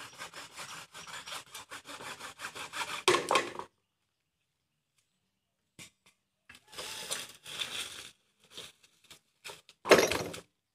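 Bamboo pole being sawn by hand in quick, repeated strokes, loudest around three seconds in. After a pause come a few shorter bursts of sawing or rubbing, and a loud burst near the end.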